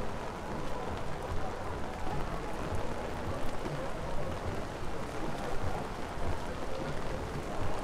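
Steady rain on a city street: an even hiss of rain and wet pavement over a low rumble, with faint voices of passers-by in the background.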